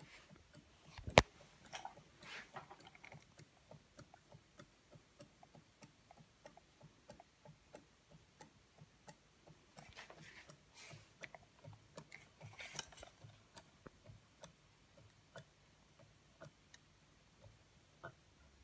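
Large Haynes Stirling hot-air engine running, its moving parts clicking about twice a second. A single sharp thump sounds about a second in.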